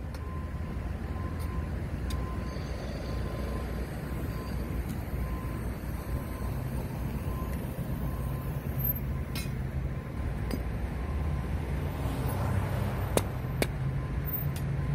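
Heavy road-construction machinery running steadily with a low engine rumble, a few sharp metallic clinks near the end.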